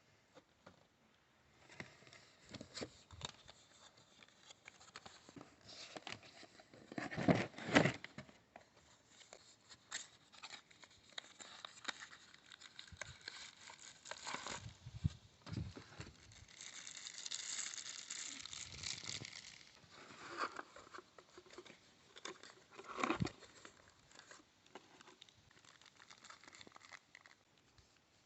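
Packaging being handled and opened by hand: scattered rustling, crinkling and tearing of cardboard and plastic wrap, with a louder burst of handling about seven seconds in and another near the end.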